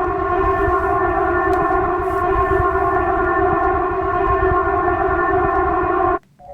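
Polish emergency alert alarm: a loud, steady electronic tone made of several held pitches at once over a low rough rumble. It does not rise or fall, and it cuts off abruptly near the end.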